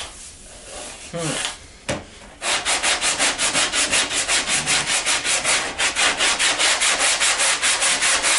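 40-grit sandpaper on a hand sanding block scrubbing back and forth over cured Roberlo body filler. It begins with a few soft strokes and a short knock, then from about two and a half seconds in turns to fast, even strokes at about five a second. The filler is easy sanding.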